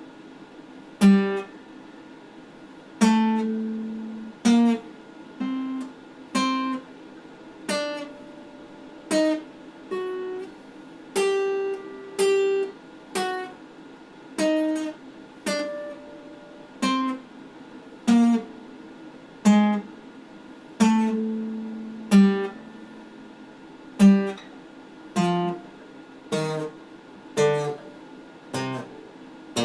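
Acoustic guitar played slowly, single plucked notes and pairs of notes about once a second, each ringing briefly before the next, moving up and down like a scale and stepping lower near the end.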